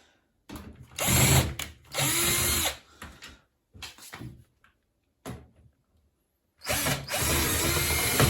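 Cordless drill-driver running in two bursts of about two seconds each, backing out the two top-lid screws of a washing machine, with small knocks and clicks of handling between them.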